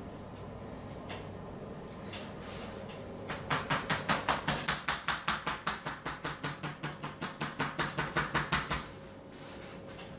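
Massage tapotement: a fast, even run of hand strikes on the body, about five a second, starting about a third of the way in and stopping after about five seconds.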